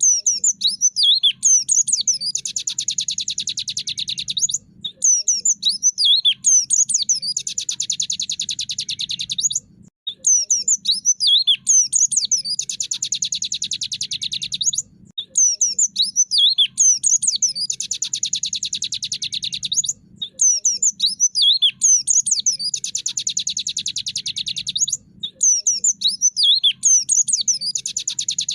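Looped recording of a white-eye (pleci) song: a burst of quick twittering whistles followed by a long, very fast buzzy rattle, the tractor-like sound, the phrase repeating about every five seconds. A faint low hum runs underneath.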